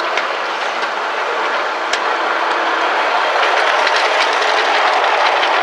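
Ride-on miniature railway train, a small yellow diesel-outline locomotive hauling a riding car, running past close by: steel wheels rolling on the rails with a few sharp clicks, growing louder as it approaches.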